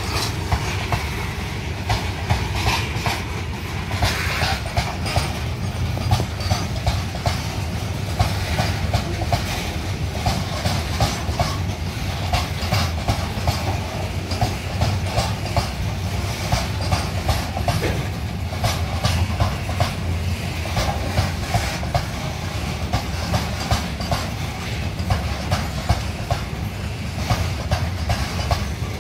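Open freight wagons of a long goods train rolling past, their wheels clicking over rail joints in a steady run of clacks over a continuous low rumble.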